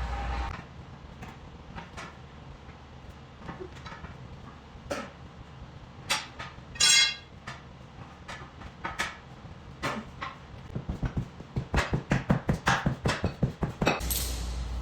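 Metal clanks and knocks of tire tools on a large tractor tire and rim. One clank rings about halfway through. A quick run of taps follows, about four or five a second, and near the end a low steady machine hum starts.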